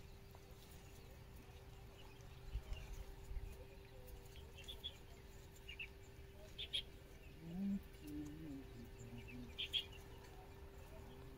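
Faint outdoor quiet with a steady low hum and a few short, high bird chirps scattered through the middle. A soft low rumble comes about two and a half seconds in.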